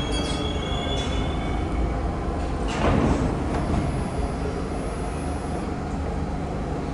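An R62A subway train rumbling steadily through the station, with a faint wheel squeal dying away near the start and a brief louder burst of noise about three seconds in.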